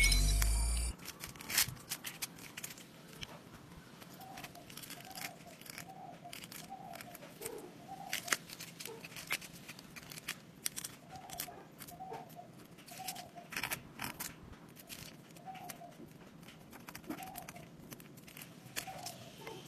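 Brittle dalgona honeycomb candy cracking and snapping as it is carved with a needle and broken apart by hand on baking paper: many sharp little cracks and crinkles, irregularly spaced. A louder low sound cuts off about a second in.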